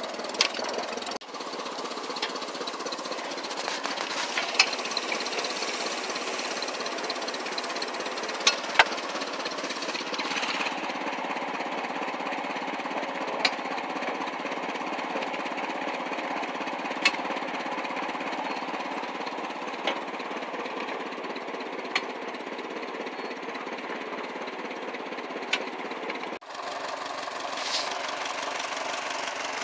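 Ford 9N tractor's four-cylinder flathead engine running steadily, with a few sharp clicks now and then.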